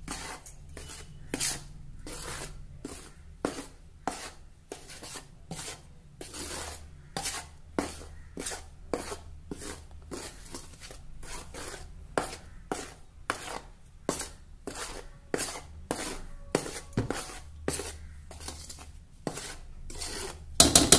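Metal spoon scraping and stirring dry rice flour and maida around a stainless steel plate, in repeated strokes about two a second. A louder knock comes at the very end.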